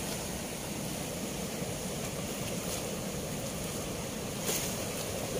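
Fast, turbulent water rushing below a weir's sluice gate, a steady noise, with a short louder burst about four and a half seconds in.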